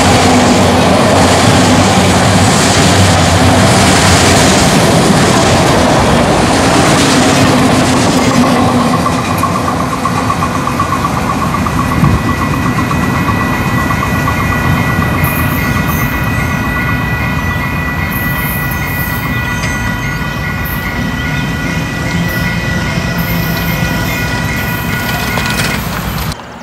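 Union Pacific freight train cars rolling past with a steady rumble of wheels on rail, loudest over the first several seconds. From about nine seconds in, a high steady squeal of several tones rides over it, typical of wheel flanges squealing on the rail. The sound cuts off suddenly near the end.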